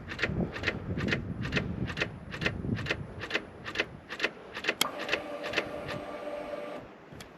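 A 2019 Honda Africa Twin that will not start after a tip-over, clicking over and over, about three clicks a second, while the start button does nothing. A faint steady hum joins the clicks about five seconds in, and the clicking stops shortly before the end. The clicking is the sign of the fault that keeps the bike from starting after the drop.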